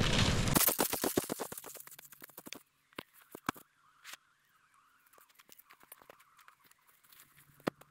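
Wind rush for the first half second, then a quick run of crunching clicks on snow that thins out, followed by scattered faint clicks and knocks as gear is handled at a pulk sledge.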